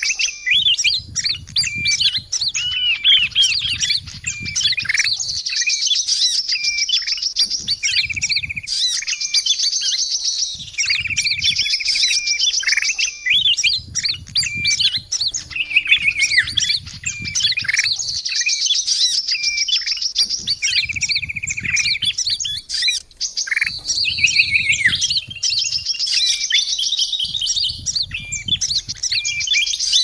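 Bird-luring playback recording of bulbul calls mixed with small songbirds' chirps, with rapid high trills and clear whistled notes recurring every few seconds in a dense, continuous chorus.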